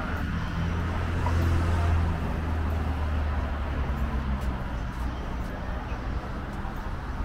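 Street traffic: a passing vehicle's engine hum swells during the first two seconds and then fades, over steady road noise.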